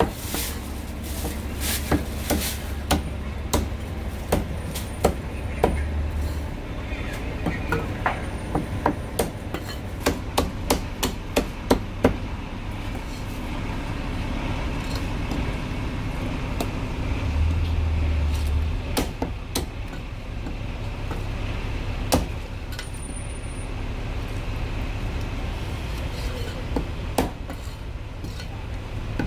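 Cleaver chopping marinated goose on a wooden chopping block: a quick run of sharp chops through the first twelve seconds or so, then only occasional single chops, with a steady low hum underneath.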